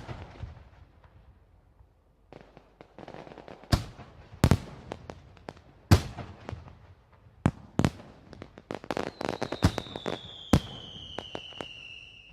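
Fireworks and firecrackers going off in irregular sharp bangs, the loudest about six seconds in. From about nine seconds a long whistle falls slowly in pitch.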